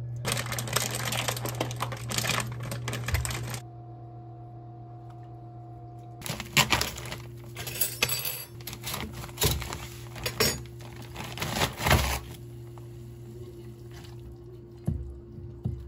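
Dishes and cutlery clattering over a steady low hum, with a run of sharp clinks and knocks in the middle and two more near the end. A dense crackling noise fills the first three or four seconds.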